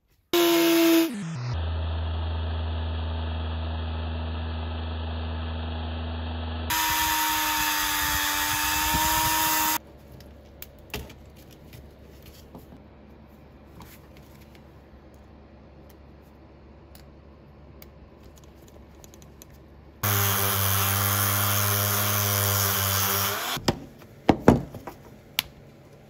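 Small power tool with a flap sanding wheel running in bursts of a few seconds, each a steady whine, used to cut away plastic from a black plastic fuel-injector wiring rail. Near the start the pitch sweeps down, and the second burst runs at a higher pitch. Between the bursts come light clicks and taps of handling.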